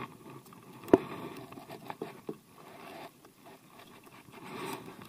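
Close rustling and scraping of clothing and hands against a body-worn camera's microphone, with scattered small clicks and one sharp knock about a second in.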